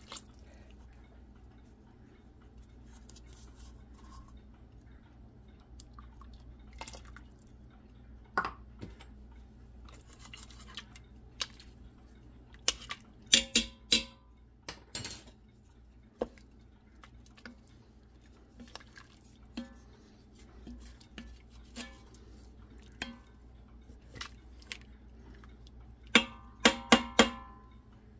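A spoon stirring and knocking against a stainless steel Instant Pot inner pot, with scattered light taps and scrapes and two bursts of sharp, ringing metal clinks, about halfway through and again near the end, over a faint low hum.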